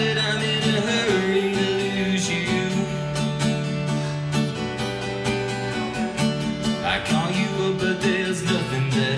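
Country-style music: strummed acoustic guitar in a steady rhythm with a singer's voice over it.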